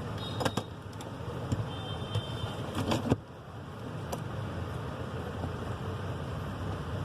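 A few small clicks and taps of phone parts being handled while the new charging-jack board is fitted back into the phone, with sharp clicks about half a second, three seconds and four seconds in, over a steady low rumble.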